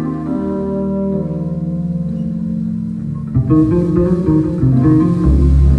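Electric bass guitar solo played live: held notes ring and fade, then a quick run of plucked notes starts about three and a half seconds in, with a deep low note near the end.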